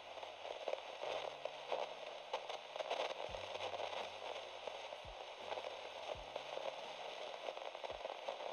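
Crackling static with a low electrical buzz that shifts pitch now and then and a few soft clicks: a glitch sound effect under an animated loading screen.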